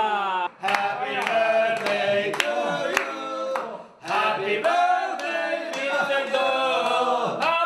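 Several voices singing together, with brief breaks about half a second in and around four seconds in, and a few sharp knocks or claps among the singing.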